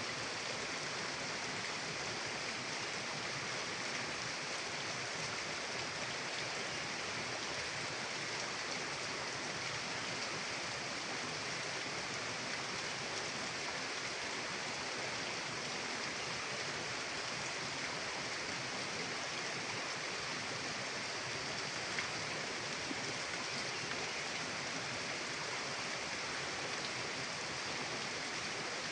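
Mountain river flowing: a steady, unbroken rush of water, with one faint click about three quarters of the way through.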